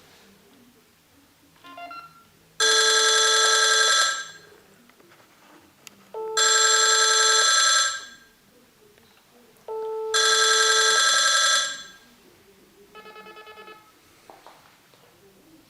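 IP video intercom doorbell call ringing like a telephone: three loud trilling rings of about a second and a half each, about two seconds apart, then a shorter, quieter ring near the end.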